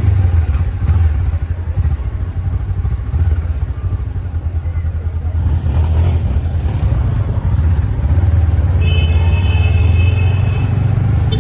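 A motor vehicle engine running with a steady low rumble. About nine seconds in, a high steady tone sounds briefly.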